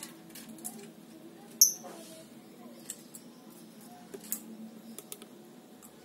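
Lovebird giving short, sharp, high-pitched chirps: one loud chirp about one and a half seconds in, softer squeaks a few seconds later, and a few small clicks.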